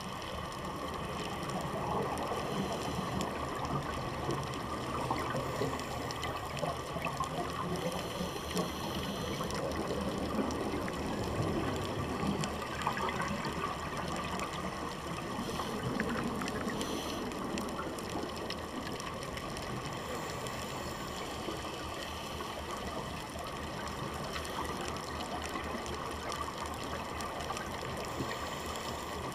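Underwater ambience heard through a dive camera's housing: a steady, muffled rush of water with faint scattered clicks.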